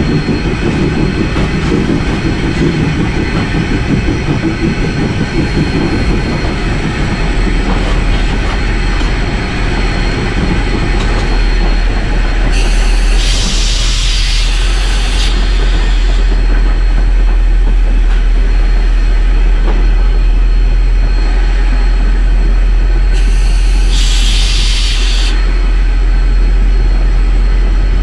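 Cab sound of 1899 Rio Grande Southern No. 20, a 4-6-0 Ten-Wheeler steam locomotive, under way: a loud, steady running rumble from the engine and wheels on the rails, with a deep steady hum coming in about seven seconds in. Two hisses of two to three seconds each, about halfway through and again near the end.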